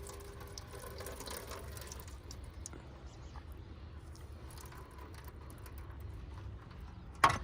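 Faint handling of the soaking container and EGR parts: small scattered clicks and scrapes, then one sharp click near the end.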